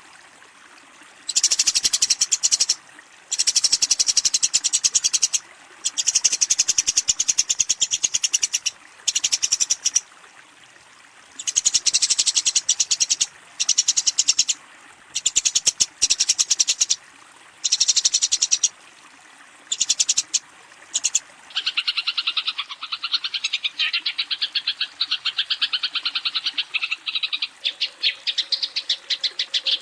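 Eurasian tree sparrow giving its agitated fighting chatter, as used to call out a rival. It comes as rapid, high-pitched trains of notes in bursts of a second or two with short pauses. About two-thirds of the way in, it changes to a longer unbroken chatter that sits a little lower.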